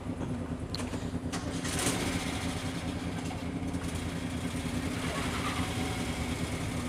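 Motorcycle engines idling steadily, a low even hum with no revving.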